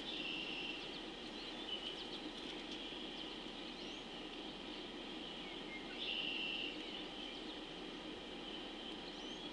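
Wetland ambience of birds calling: scattered short chirps and calls over a steady high-pitched background chorus, with two louder trills, one at the start and one about six seconds in.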